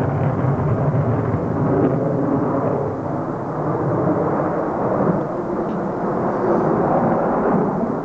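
Saab JA 37 Viggen's afterburning Volvo RM8B turbofan as the jet flies overhead: a loud, steady jet rumble that eases slightly about three seconds in.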